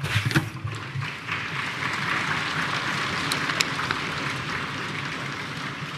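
Legislators applauding: a steady, dense clapping sound with a few sharper claps standing out.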